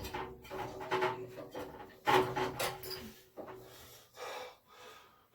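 Electric water heater heating element being unscrewed from the tank with an element wrench: a series of irregular rasping scrapes as the threads turn.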